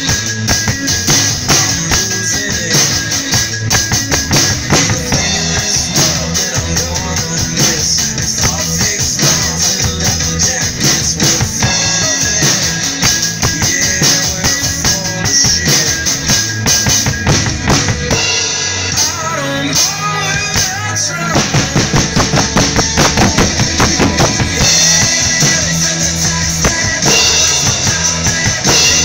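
Acoustic rock drum kit played with sticks along with a recorded rock song: a steady beat of bass drum and snare with cymbals over the band. The low end thins out for a couple of seconds about two-thirds of the way in, then the full groove comes back.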